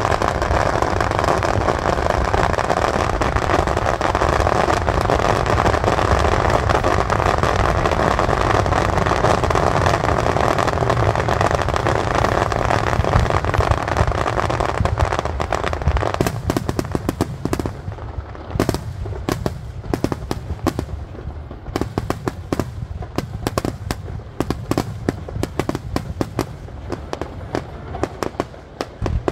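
Starmine fireworks barrage going off: for about the first half the shell bursts come so fast they merge into one dense, continuous roar of explosions and crackle, then it thins into many separate sharp bangs and cracks.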